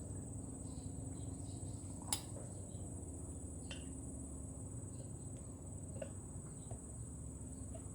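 Small parts of a Holset turbocharger being handled during hand assembly: a few light metallic clicks and taps, the clearest about two seconds in, over a steady faint hum and high whine.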